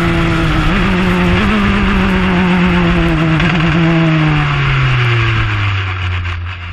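JAF-F4 formula car's engine heard onboard in heavy rain, holding steady revs with a few brief wobbles, then the revs fall away over the last couple of seconds as the car slows. A constant hiss of rain, spray and wind runs under it.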